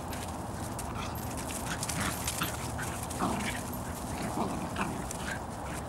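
Bedlington Terriers wrestling in play, giving many short, high-pitched cries.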